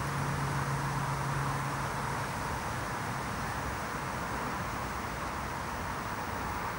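Steady outdoor background noise, like distant traffic, with a low hum that fades out about two seconds in.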